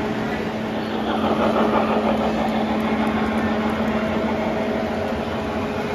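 O scale model trains running on three-rail track: steady wheel rumble on the rails with a constant hum underneath, louder from about a second in until about three seconds.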